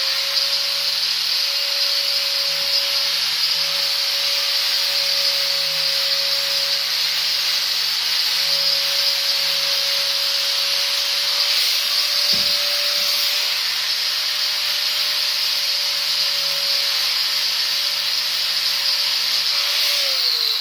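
4-inch angle grinder fitted with a flap sanding disc, running at a steady high whine with a hiss while it sands a plywood corner round. It spins down near the end.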